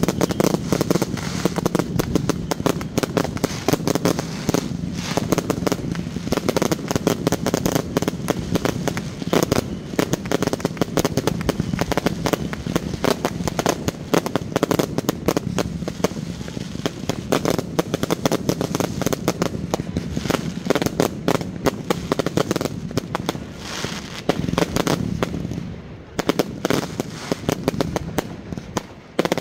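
Fireworks going off in a dense, rapid barrage of crackles and bangs, many a second, thinning out near the end.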